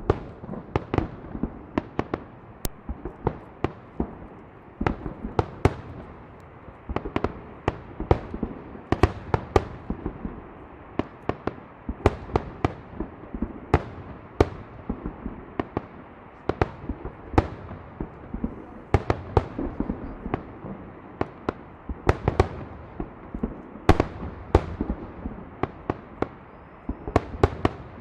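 A fireworks salute: many sharp bangs of bursting aerial shells, irregular and often in quick clusters, over a steady noisy background.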